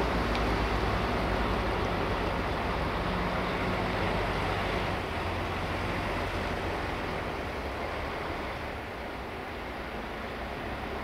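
DAF XF truck's diesel engine running at low speed as the truck creeps forward, a steady low drone with a hiss of noise over it that eases off slightly after about five seconds.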